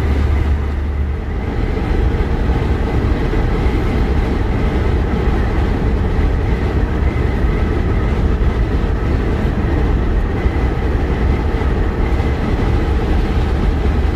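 Semi-truck cab noise while driving: a steady low rumble of the diesel engine and the tyres on the road.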